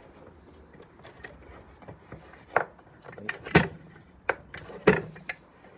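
A freshly freed-up, formerly rusted clamp being closed and tightened on an item, giving a handful of sharp clicks and knocks. The loudest come about two and a half, three and a half and five seconds in.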